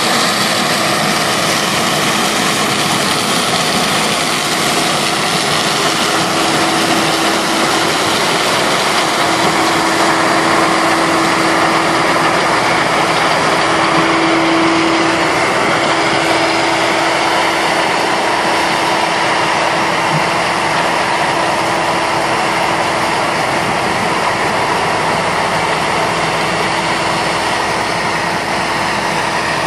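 New Holland TF46 combine harvester working at harvest in maize: its engine and threshing machinery give a loud, steady drone with a humming tone that grows louder about halfway through, as the machine passes close, then eases off.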